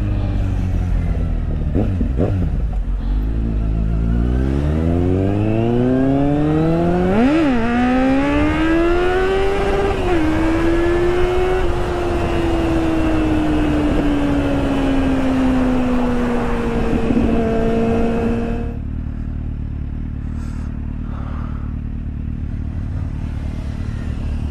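Motorcycle engine accelerating, its pitch climbing steadily with two quick dips at gear changes, then easing off and slowly falling. The engine sound drops away abruptly near the end.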